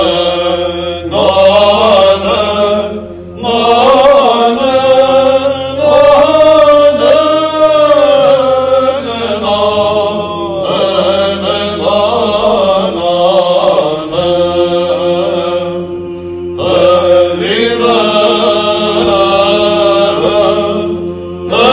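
Byzantine chant sung live by a choir of monks and students. A sung melody moves over a steady held drone note (the ison), with short breaks between phrases about three seconds in and again near sixteen seconds.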